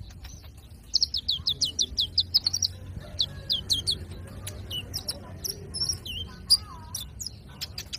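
Young olive-backed sunbird (kolibri ninja) singing: a fast run of high, falling notes, about seven a second, for about three seconds, then scattered sharp chirps.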